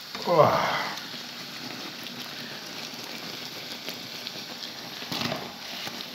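Lángos dough deep-frying in hot oil in a pan, sizzling steadily. It flares up loudly for about half a second soon after the start as the flipped dough drops back into the oil. There is a short knock of the fork near the end.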